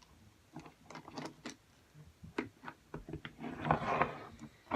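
Putty being squished and pulled apart by hand, giving irregular small clicks and pops, with a longer squelch a little past halfway through.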